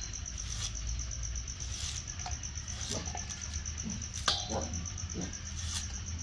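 Short, irregular scrapes of a knife stripping kernels off a hard, mature ear of corn into a metal bowl, about half a dozen strokes. Under them a steady, fast, high chirping runs on.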